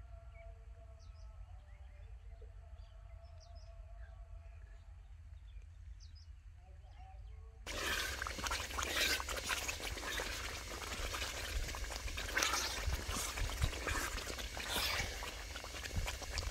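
Faint outdoor ambience with short bird chirps, then, about eight seconds in, the louder sound of thick poppy-seed halwa sizzling and bubbling in ghee in a metal pot as a wooden spoon stirs and scrapes through it. The milk is nearly cooked off and the halwa is almost done.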